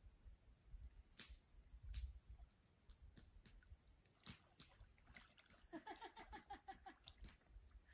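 Near silence with a few faint clicks. About six seconds in, a common loon gives a short tremolo, a rapid run of quick repeated notes lasting about a second.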